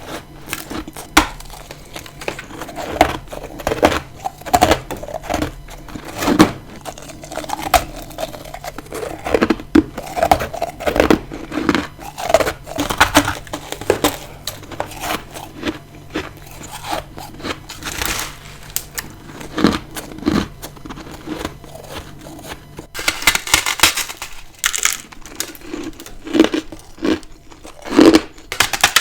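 Close-miked biting and crunching of freezer frost and ice: many sharp, irregular bites and crunches. About three-quarters of the way in a faint hum stops and a bright, crisp crunch follows.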